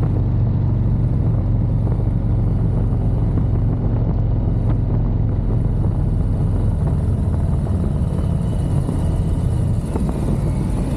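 Motorcycle engine running steadily while riding at road speed, with a continuous rush of wind and road noise.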